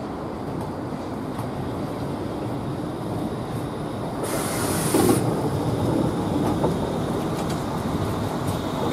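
Bombardier Flexity seven-section tram passing close at low speed: steady rumble of steel wheels on the rails, louder as it goes by, with a short high hiss about halfway through.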